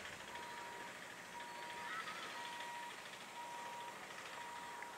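An electronic warning beeper giving a steady high beep about once a second, each beep roughly half a second long, with a few birds chirping.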